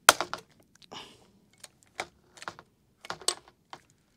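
Hand rivet gun being pumped to set a pop rivet: a series of sharp clicks and snaps in a few clusters, the loudest right at the start.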